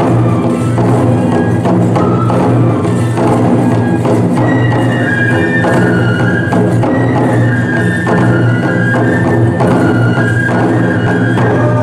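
Live Kesen tiger-dance (toramai) festival music: large taiko drums beating steadily under a high melody of held notes on bamboo transverse flutes.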